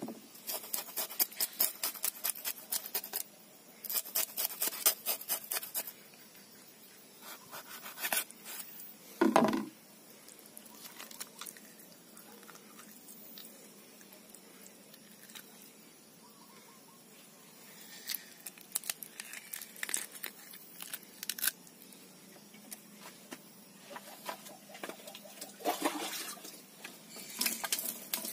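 Whole fresh fish being picked up, turned and set back down on a woven bamboo basket tray: bursts of quick rustling and clicking from the weave, with one louder, duller knock about nine seconds in.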